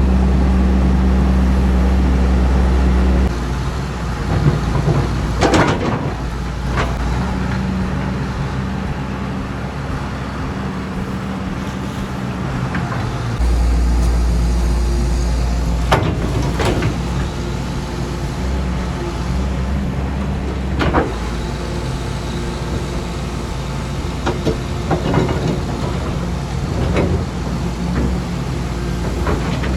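Heavy-equipment engine running steadily, working mud and dirt, with a scattering of sharp knocks and scrapes. Its sound gets louder for the first few seconds and again about halfway through, with sudden changes in level.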